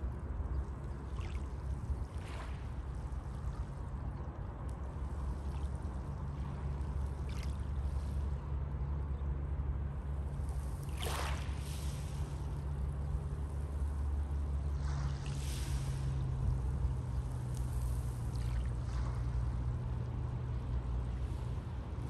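Small sea waves washing onto a pebble beach. Each wash is a brief hiss, repeated several times, the strongest about halfway through, over a steady low rumble.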